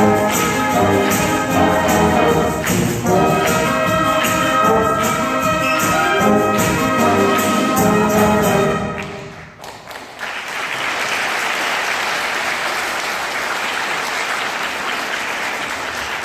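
Junior high school wind band playing the closing bars of a piece, brass to the fore, ending about nine seconds in; then the audience applauds steadily.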